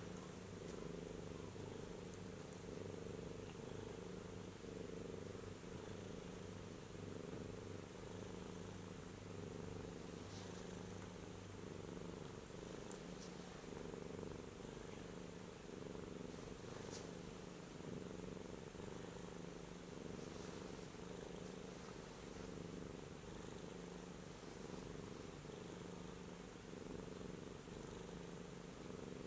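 Domestic cat purring steadily, a low even rumble, with a few faint ticks now and then.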